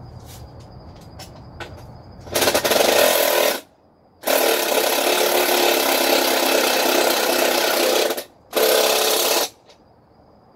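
A power tool running in three bursts: a short one, one of about four seconds, and a short one near the end.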